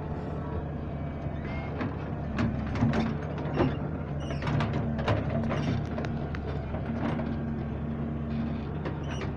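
Doosan 140W-V wheeled excavator's diesel engine running steadily, with a string of sharp knocks and scrapes in the middle as its bucket works the sandy slope.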